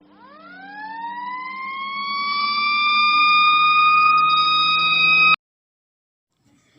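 Fire truck siren winding up: its pitch rises steeply, then levels off and holds high as it grows louder, with a low hum underneath. It cuts off suddenly about five seconds in.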